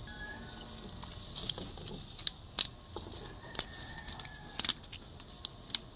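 Wooden spatula clicking and knocking against a wok while lifting and turning pancit bato noodles, about ten sharp taps starting a second and a half in, over a steady faint high hiss.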